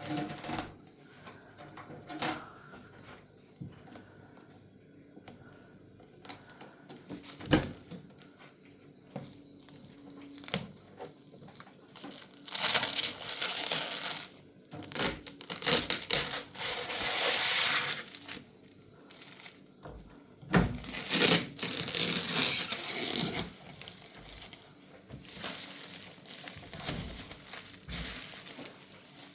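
Plastic packaging being torn and crumpled in long bursts, with a few sharp knocks in the first seconds.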